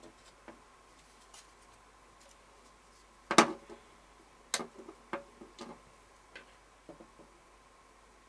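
Hard plastic clicks and snaps from a Synology DS220+ drive tray as its clip-on side rail is worked off by hand: one sharp snap about three seconds in, then a few smaller clicks.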